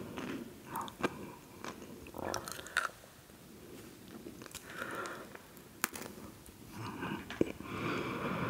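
Close-miked chewing and biting of crunchy salty snacks, with scattered sharp crunches.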